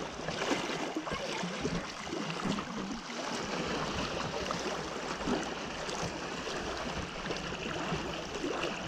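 Lake water splashing and sloshing close to the microphone as a swimmer moves through the water, with nearby swimmers' strokes splashing.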